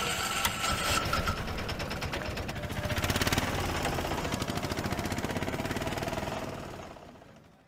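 Motorcycle engine running with a fast, even exhaust pulse. It swells louder about three seconds in, then fades out near the end.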